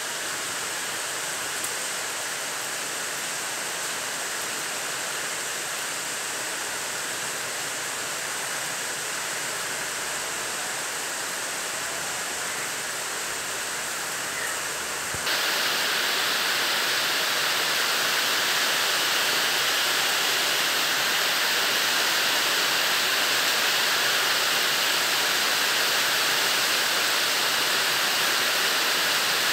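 Steady rain falling, an even rushing hiss that suddenly grows louder and sharper about halfway through.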